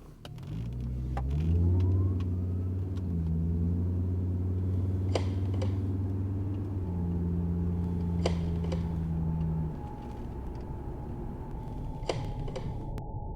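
A car engine starts with a rising pitch, then runs steadily before dropping away at about ten seconds. A few sharp clicks sound over it.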